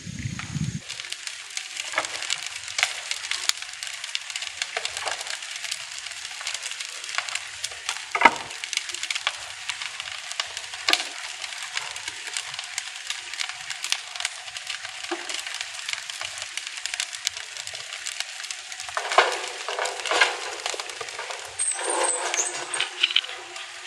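Wood fire crackling and popping irregularly in the firebox of a wood-fired kiln. Near the end, a denser run of louder cracks and knocks as split firewood is stoked into the firebox and the flames flare up.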